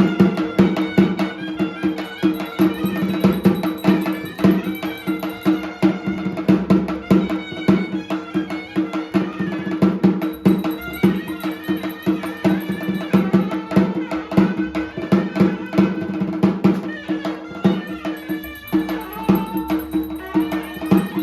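Traditional Indian music with a steady low drone, a melody moving above it, and dense, fast percussion.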